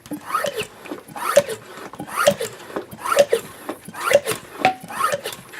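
Hand pump of a pressurized fluid-fill tank being pumped up, about one stroke a second, with a short squeak on each stroke.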